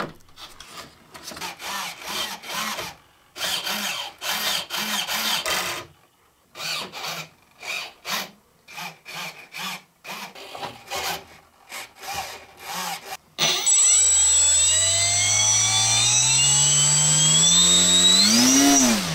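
Hands working a lipo battery into a balsa model airplane's fuselage: scraping, rubbing and small knocks in short spells. About two thirds of the way in, the newly fitted brushless electric motor starts and spins up the propeller, its whine rising steadily in pitch for about five seconds with a thin high tone above it, then winding down quickly near the end.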